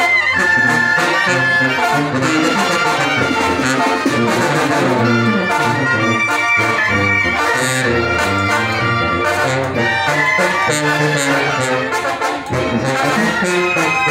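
A brass band playing a tune. A sousaphone carries the moving bass line under the trumpets and other brass, with steady drum beats.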